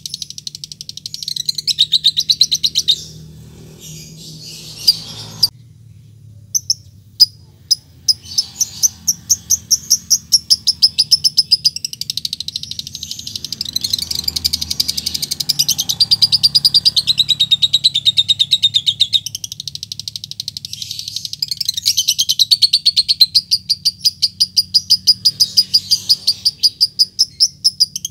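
Fischer's lovebird chattering in long runs of rapid, evenly repeated high chirps: the drawn-out 'ngekek' trill a male uses to call a rival. Around five to eight seconds in the run breaks into a few single sharp chirps ('ngetik'), then builds back into the long trill.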